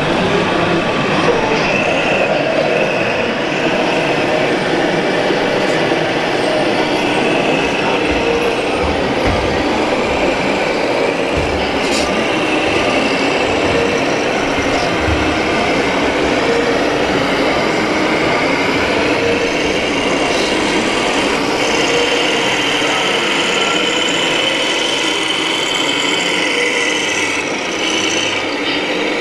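Steady mechanical running noise of radio-controlled model trucks driving on an indoor track, mixed with the general din of a large hall.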